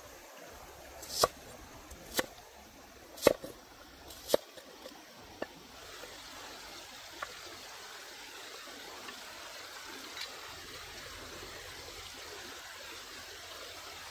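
Cleaver chopping a red onion against a wooden bowl: four sharp knocks about a second apart, then a couple of lighter ones. From about six seconds in, a steady wash of flowing stream water.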